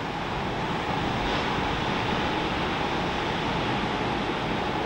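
Steady wash of ocean surf breaking along a sandy beach break, with some wind.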